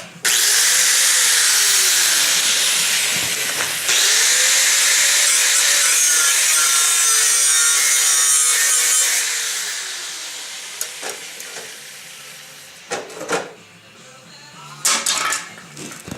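Power tool cutting through the rusted sheet-metal floor tunnel of a VW Thing: a loud, steady cutting noise with one brief break, then the motor winds down with a falling whine. A few sharp metal knocks follow near the end.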